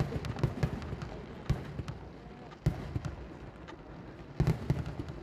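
Fireworks going off: irregular sharp bangs and cracks over a steady rumble, with a quick cluster of louder bangs near the end.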